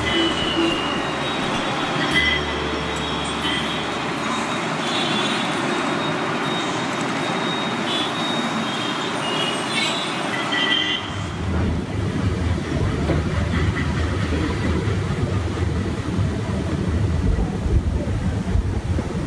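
A passenger train in motion, with the steady noise of wheels and carriage on the rails. About eleven seconds in, the sound changes suddenly to a deeper, rougher rumble.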